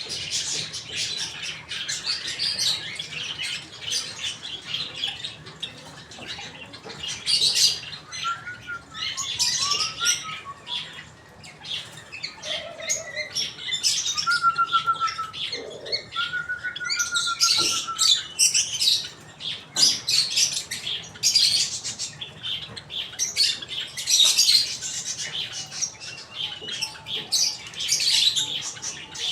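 Lovebirds chattering: dense, shrill chirps and squeaks in bursts, with a few lower whistled notes in the middle and scattered sharp clicks.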